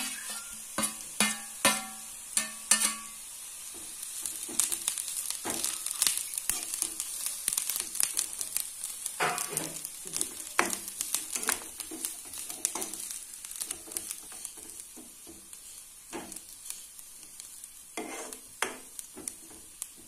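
Grated coconut and sliced onions sizzling as they roast in oil in a frying pan, with a steel spoon stirring and scraping against the pan in frequent sharp clacks.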